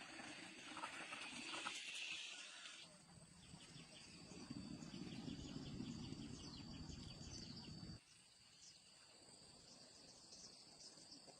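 Faint outdoor ambience: a steady high-pitched insect drone with bursts of rapid chirping, over a low rumble that cuts off suddenly about eight seconds in.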